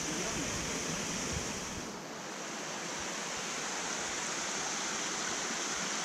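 Steady rush of a mountain stream's water running over rocks, with a slight dip in level about two seconds in.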